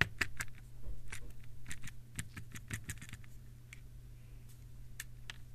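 Small germanium crystal pieces clicking and clinking as they are shaken out of a small vial onto paper: a quick run of clicks at the start, then scattered clicks that thin out toward the end.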